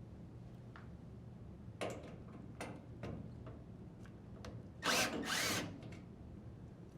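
Drill driver with a 1/4-inch bit running briefly, loosening a dryer door hinge screw, about five seconds in. A few light clicks of the bit on the screw head come before it.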